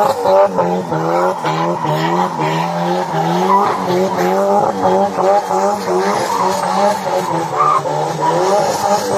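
A car doing a burnout: tyres squealing and the engine held at high revs, its pitch rising and dropping over and over, a couple of times a second.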